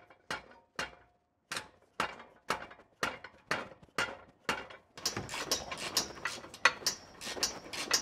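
Hand-tool work on an exhaust system: sharp knocks or clicks about two a second, turning into a busier, denser clatter of tool noise about five seconds in.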